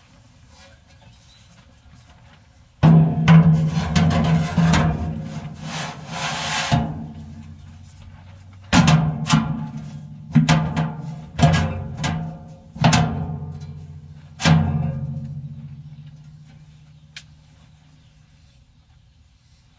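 A cut-down steel plate scrapes and clatters into place inside a steel reverse-flow smoker's cook chamber for a few seconds. It is then knocked down about six times, and each knock sets the smoker's steel body ringing. The last ring fades out over several seconds.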